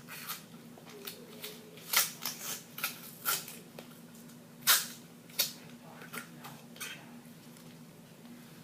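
Irregular clicks and knocks of small plastic fidget toys being handled, the loudest about two seconds in and again about halfway through.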